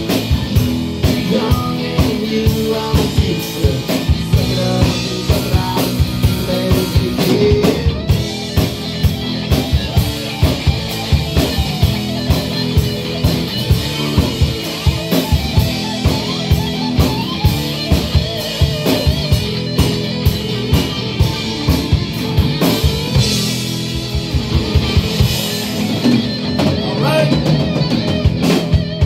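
Live rock band playing an instrumental passage: drum kit keeping a steady beat under electric guitars and bass guitar.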